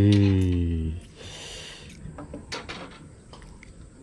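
A man's voice holding one low note for about a second, then scattered small clicks and knocks of handling.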